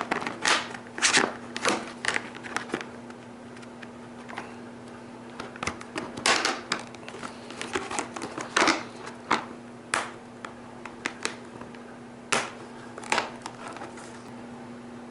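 Hands handling and fitting bicycle fender parts and screws, making irregular sharp clicks and short rustles, over a faint steady hum.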